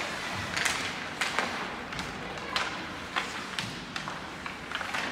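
Ice hockey play in an indoor arena: a dozen or so sharp clacks of sticks and puck and short scrapes of skate blades on the ice, irregularly spaced, over the hall's background noise.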